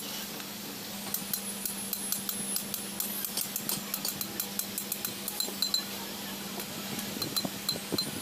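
Small hammer tapping metal on a truck clutch plate, a string of quick, uneven clinking taps that ring briefly, over a steady low hum.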